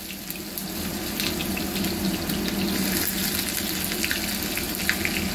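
Onion frying in hot oil in a small pan, just added: a steady sizzling hiss with scattered crackles and pops.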